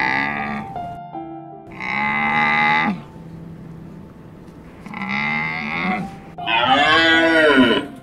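An animal calling: several long, drawn-out calls about a second each, the last one rising and then falling in pitch.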